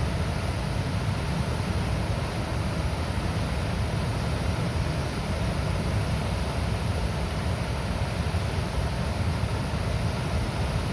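Water released from a dam rushing and gurgling steadily, a constant deep churning noise with no breaks.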